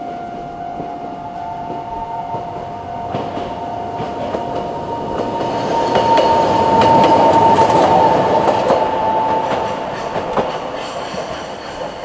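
Tokyo Sakura Tram (Toei Arakawa Line) streetcar passing over a level crossing, its wheels clicking over the rail joints with a steady whine, loudest about six to nine seconds in. The crossing's slow-tempo alarm bell rings under it.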